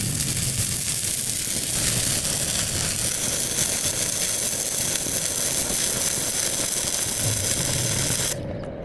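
Electric arc welding: a steady, crackling hiss from the arc that cuts off suddenly near the end as the arc is broken.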